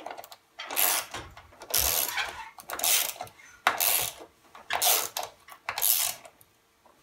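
Ratchet socket wrench tightening a counterweight bolt: about six short bursts of ratchet clicking, roughly one a second.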